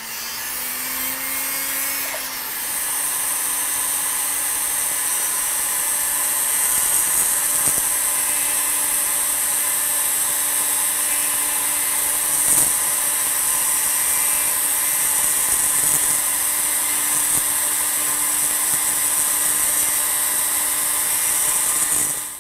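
Handheld rotary tool grinding wood out of the tang area of a wooden rifle stock, relieving it to make room for glass bedding. It speeds up with a rising whine over about the first two seconds, runs with a steady high whine, then stops abruptly.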